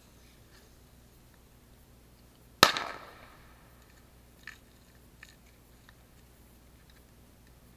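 A single sharp firecracker bang about two and a half seconds in, echoing as it dies away over a second. Two faint distant pops follow.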